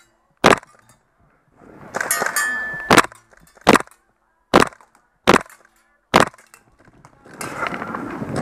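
Six single semi-automatic shots from a GHK G5 gas-blowback airsoft rifle, each a sharp crack. The first comes alone; the other five follow at under a second apart.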